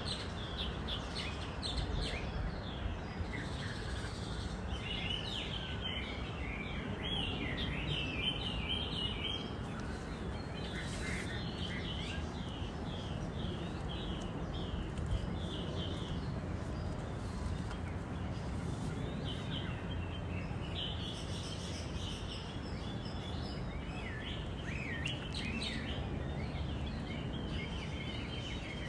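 Small birds chirping in quick runs of short, high notes, with gaps between runs, over a steady low background rumble.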